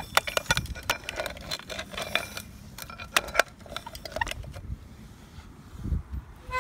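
Plastic toys being handled in sand: a quick run of small hard clicks and clinks as the toy digger bucket and dinosaur figure knock together and scrape. The clicks thin out after about four seconds.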